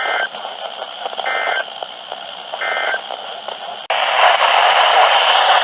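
Emergency Alert System end-of-message signal heard over a radio: three short bursts of warbling digital data tones, about a second and a bit apart, over background hiss, marking the end of the alert message. About four seconds in, it cuts abruptly to loud radio static.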